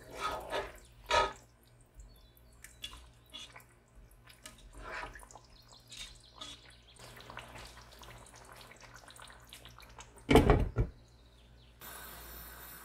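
Kitchen handling sounds: water splashing and dripping amid scattered light clinks, with one loud thump about ten seconds in. A steady hiss sets in near the end.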